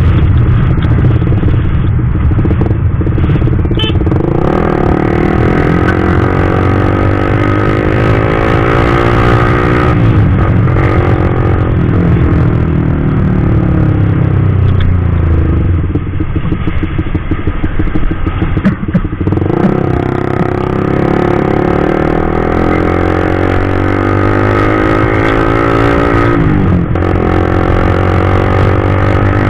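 Suzuki GSX-R150's single-cylinder four-stroke engine through a CLDX Monster aftermarket exhaust, heard while riding. The engine note climbs in pitch as it pulls through the gears and drops back at three shifts, with a choppy, uneven stretch a little past the middle.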